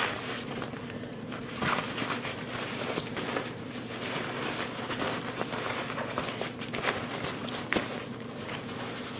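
Ripstop nylon fabric of a packable daypack rustling irregularly in the hands as the pack is folded and tucked into its own pocket, with a few short sharp clicks.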